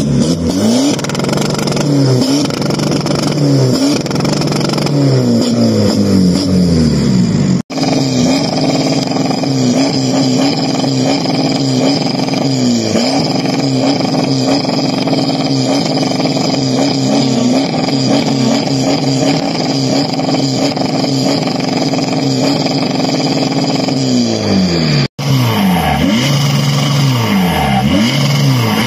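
Volkswagen car engines revved hard while parked, three cars in turn: the first revved up and down over and over, the second, a Mk5 Golf with twin exhaust, held at steady high revs with brief dips, and the last, a Bora TDI diesel, revved up and down again. The sound breaks off sharply twice where one car gives way to the next.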